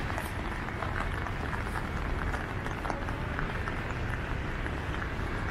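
City street ambience: a steady low traffic rumble and general street noise, with scattered light clicks and taps running through it.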